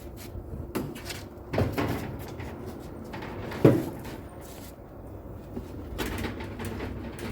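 A few short knocks and clicks spaced a second or two apart: the control panel buttons of an LG top-loading washing machine being pressed.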